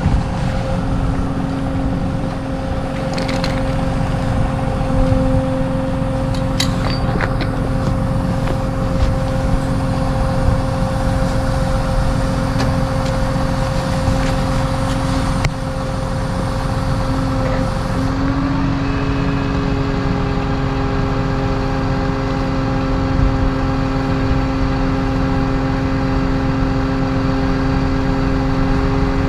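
A motor vehicle engine running steadily, with a dense low rumble and a constant hum. About eighteen seconds in, the hum steps to a new set of tones and stays there.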